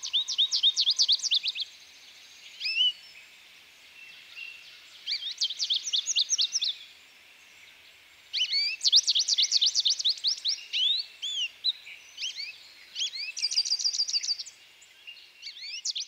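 European goldfinch singing: bursts of rapid, twittering chirps in phrases of one to two seconds, broken by short pauses.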